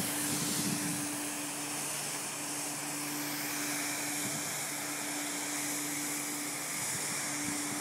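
Fan-type snowmaking gun running: a steady hiss of spray over an even mechanical hum.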